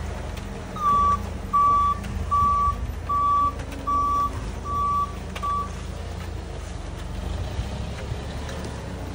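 Vehicle reversing alarm beeping seven times, about one beep every 0.8 seconds, then stopping a little past halfway, over the steady low rumble of an idling engine.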